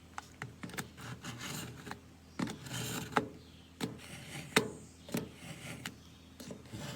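Steel knife blade drawn repeatedly through the slots of an angle-adjustable pull-through knife sharpener: a series of short scraping strokes with sharp ticks, sharpening the edge.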